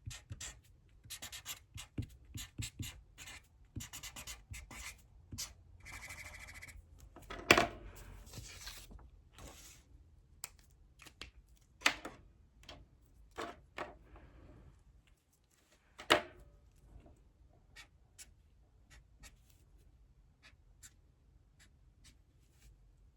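Handwriting on paper: quick scratchy strokes of a pen or pencil, with a second-long rubbing stretch about six seconds in and three sharp taps, the strokes thinning out in the second half.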